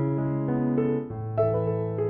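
Background music: a soft piano or electric piano playing slow sustained notes and chords.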